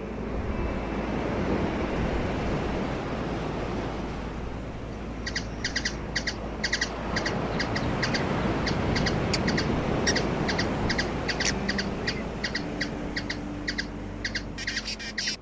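Hummingbird chipping: short sharp notes, about three a second, starting about five seconds in and quickening near the end, over a steady rushing hiss.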